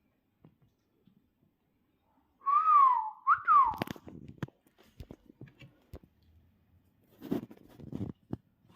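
A whistle in two short phrases, each rising then falling, followed by scattered clicks and light knocks.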